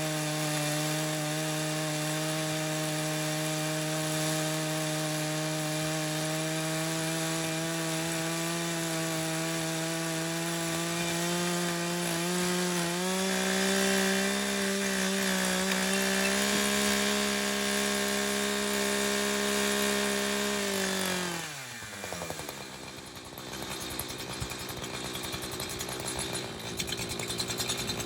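Echo CS-590 two-stroke chainsaw with a ripping chain running at full throttle, ripping along a red oak cant in a chainsaw mill. Its engine speed steps up a little about halfway through, then the throttle is released and it drops quickly to idle near three-quarters of the way in.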